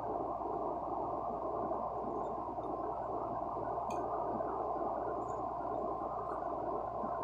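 Sany 210 excavator running with a steady, muffled drone and no hammer blows, with one faint click about four seconds in.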